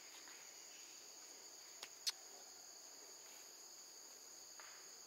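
Steady high-pitched insect chorus, a drone in two tones, with two sharp clicks about two seconds in, the second louder.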